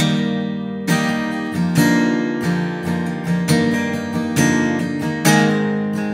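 Background music: an acoustic guitar strumming chords, a fresh strum about every second, each ringing out and fading, with no singing.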